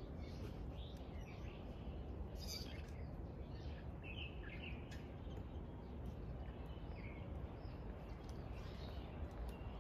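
Small birds chirping now and then, short high chirps scattered over a steady low outdoor background noise.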